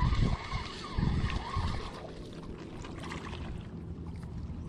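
Low, irregular rumbling bumps for about two seconds, the microphone being handled or buffeted while the angler reels. These settle into a quieter background of water lapping along a rocky riverbank.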